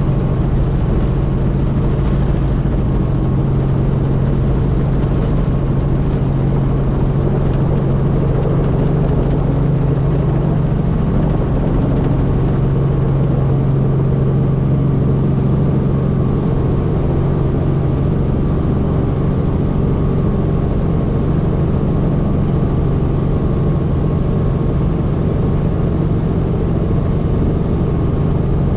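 Helicopter engine and rotor running steadily, a constant loud drone with a strong low hum.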